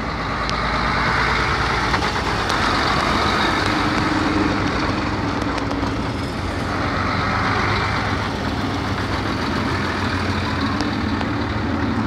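Army trucks, a Mercedes-Benz among them, driving slowly past in a column, their diesel engines running steadily. The sound swells twice as trucks go by.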